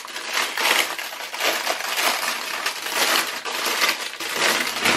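Clear plastic packaging crinkling continuously as hands open it and pull out a bundle of small bags of diamond painting drills, an uneven crackle of many small rustles.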